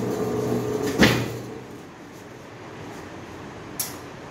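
A 60-litre planetary mixer's motor runs with a steady hum, then stops with a clunk about a second in as the machine is switched off. A sharp click follows near the end as a control on the mixer is worked.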